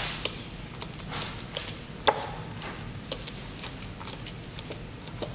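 Metal fork clinking against a stainless steel bowl while mashing ripe bananas: irregular light clicks and pings, the loudest about two seconds in.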